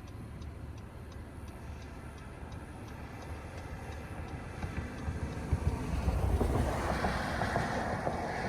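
Road and wind noise inside a moving vehicle, with a light regular ticking through the first half. The rumble and noise grow louder from about five seconds in.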